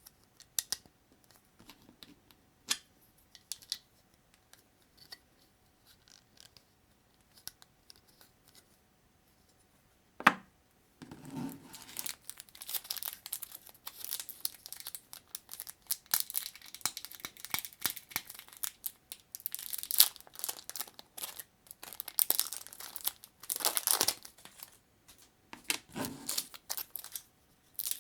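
A few scattered light clicks, then from about ten seconds in a long stretch of thin plastic crinkling and tearing, as of packaging film or a parts bag being handled.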